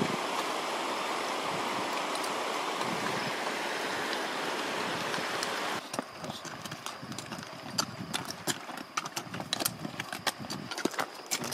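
A mountain river rushes steadily. About six seconds in it gives way to a loaded pack animal's hooves clopping irregularly on a stony trail.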